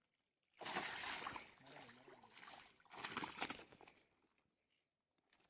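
Two bursts of water splashing, each about a second long, the second about two seconds after the first.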